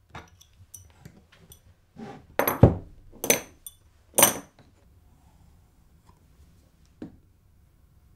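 Small metallic clinks and rattles of a pillow block bearing and a hand tool being handled on a plywood jig. Three louder clunks come between about two and four and a half seconds in, and a single knock about seven seconds in.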